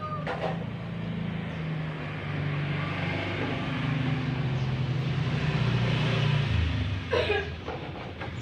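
A motor vehicle's engine running steadily and growing louder over several seconds, then dropping in pitch and fading. A short knock comes near the end.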